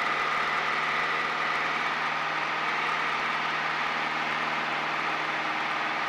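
Piper PA-28 light aircraft's piston engine and propeller droning steadily in flight, heard inside the cockpit as a constant drone with a few steady tones.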